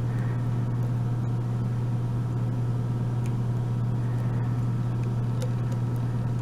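Steady low hum that does not change, with a few faint light ticks from the lock picking.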